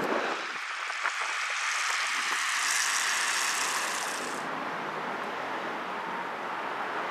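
Road traffic noise: a vehicle passing, a hiss that swells to a peak about three seconds in and then eases off.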